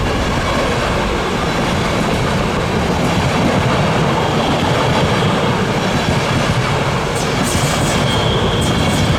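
Train passing close by, its wheels running on the rails with a steady heavy rumble and clatter. A thin, high wheel squeal comes in near the end.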